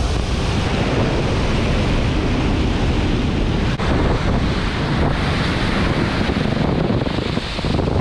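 Pacific Ocean surf breaking and washing around the legs in shallow water, a steady loud rush, with wind buffeting the action camera's microphone.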